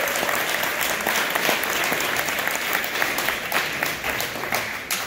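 Audience applauding, the clapping easing off slightly near the end.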